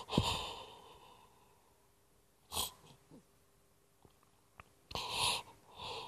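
A woman crying into her hands: sobbing, sniffling breaths, one near the start, one about halfway through and two close together near the end.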